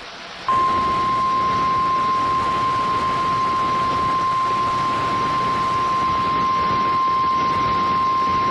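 NOAA Weather Radio warning alarm tone: one steady, unwavering high tone over radio static, cutting in about half a second in. It signals that a warning message is about to be read.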